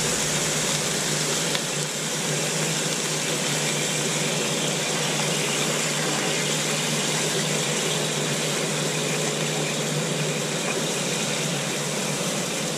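Char-Griller Gravity 980 charcoal grill with a chicken cooking on its grates, giving a steady, even hiss.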